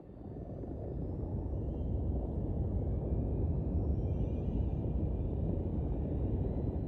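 A steady low rumbling noise fades in over the first second and then holds, with faint thin high tones sliding slowly upward above it.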